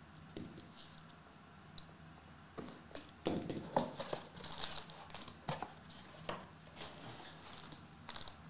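Cardboard card box being opened and handled by hand: scattered light taps, scrapes and rustles, busiest about three to four seconds in, then the crinkle of a plastic foil pouch being handled near the end.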